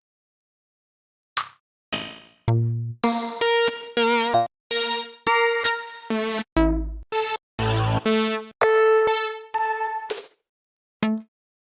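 Synthwave sample-pack one-shots auditioned one after another: short electronic drum-machine and synth hits, many with a clear pitched tone and a few with a deep low thump, about two a second after a second and a half of silence at the start.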